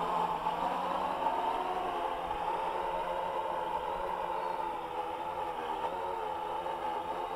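AEE AP10 Pro quadcopter's motors and propellers whining in flight, a steady multi-toned whine that wavers slightly in pitch as the drone manoeuvres.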